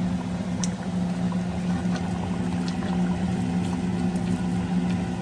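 Chicken curry in coconut milk simmering in a stainless steel pot, under a steady low hum, with a few faint clicks.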